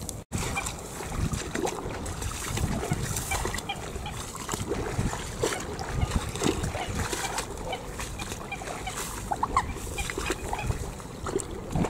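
Steady wind and rain noise over open flooded fields, with scattered short animal calls and small splashes of water.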